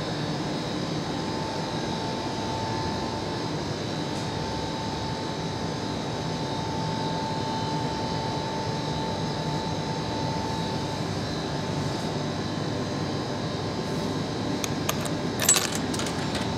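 Steady mechanical hum with a faint high whine from a frozen-food vending machine, its freezer running at −20 °C. Near the end come a few sharp clicks and a short clatter as coins go into the coin slot.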